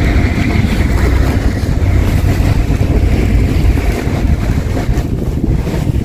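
Strong blizzard wind buffeting the microphone, a loud steady rumble, with a stuck car's engine running underneath it.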